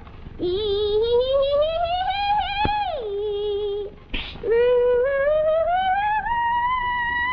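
A woman singing in a wavering soprano: two long notes that each slide slowly upward. The first drops back to a lower held note before a short breath about four seconds in.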